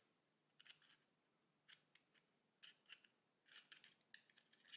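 Faint, irregular light clicks and taps of small steel parts being handled and fitted into an MG42 trigger grip during reassembly.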